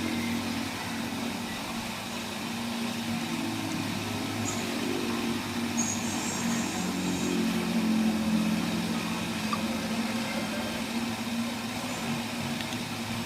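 Car engine running steadily with a low hum, a little louder around eight seconds in.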